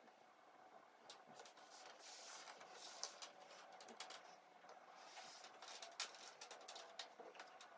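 Faint clicks and taps of cardboard jigsaw puzzle pieces being picked up and set down on a tabletop, with two spells of pieces brushing and sliding across the surface as hands sort them.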